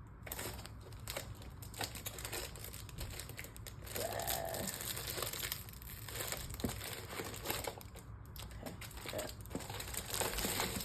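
Packaging crinkling and rustling as it is handled, with scattered light clicks.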